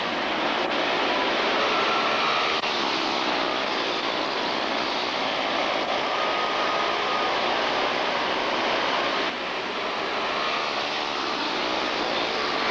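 A pack of quarter midget race cars running together on a dirt oval, their small single-cylinder engines merging into a steady buzzing drone, with single engine notes briefly standing out over it as cars pass.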